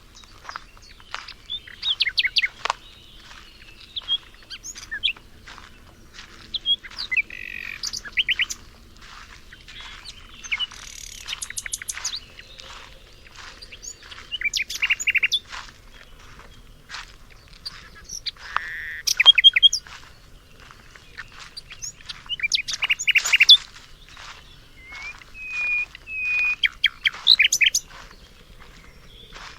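Several songbirds singing and chirping together, a busy overlapping mix of short high calls and rapid trills.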